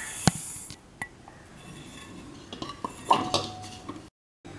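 Granulated sugar pouring with a hiss into a stainless steel mixer-grinder jar, with a sharp clink about a quarter of a second in, then a few faint metallic clinks.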